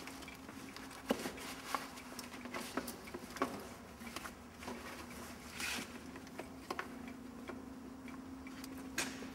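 Scattered light clicks and knocks of hands connecting a fuel line to the rear fuel tank of a microlight trike, with one brief rustle about halfway through, over a faint steady hum.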